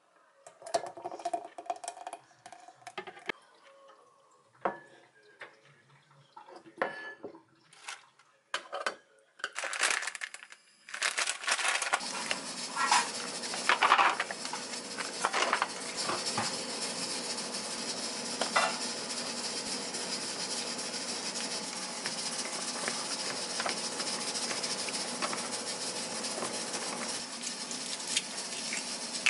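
Kitchen handling sounds: scattered clicks and knocks of containers being set down and handled. About eleven seconds in, a steady whooshing noise with a faint hum starts and runs on, with crinkling of a plastic bag of rice cakes being opened over a paper cup.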